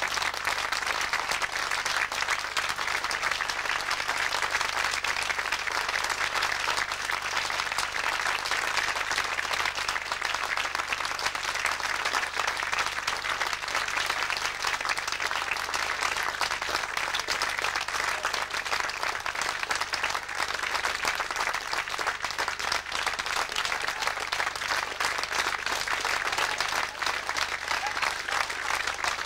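Theatre audience applauding steadily, a dense, sustained clapping: end-of-show applause for the cast's curtain call.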